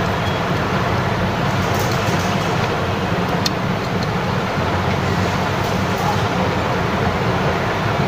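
A steady, even background noise with a low hum underneath, and a single faint click about three and a half seconds in.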